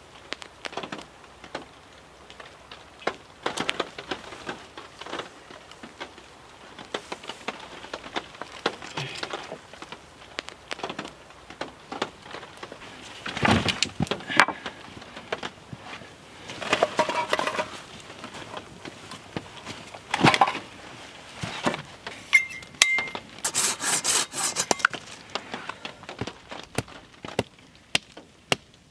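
Wooden sticks being handled, knocked together and cracked: a long series of sharp wooden knocks and snaps with rustling between them, the loudest cracks coming in the middle stretch.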